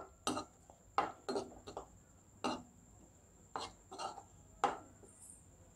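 A spatula stirring and scraping a thick onion-and-sauce mixture around a nonstick pan: about a dozen short scrapes, irregularly spaced.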